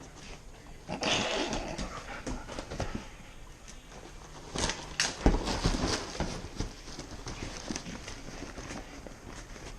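Scuffing, rustling and footstep-like movement close to the microphone, with a few sharp knocks about four and a half to five and a half seconds in.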